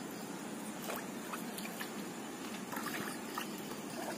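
Steady wash of small waves moving over a rocky shore, with a few faint clicks.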